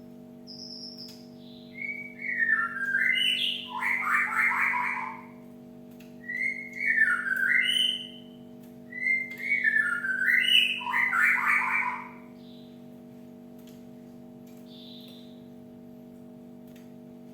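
Cinereous tit singing: three phrases of whistled notes that step down in pitch, each ending in a harsh, rapid chatter, with a few faint high notes before and after. A steady low hum runs underneath.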